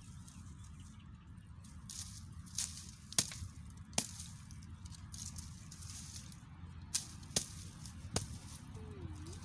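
Small hatchet chopping thin dry branches on the ground: about six sharp cracks at irregular intervals, most of them in the second half.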